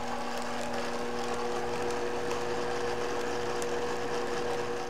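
Countertop blender running at a steady speed, its motor humming as it grinds pork rinds and grated Parmesan into fine crumbs.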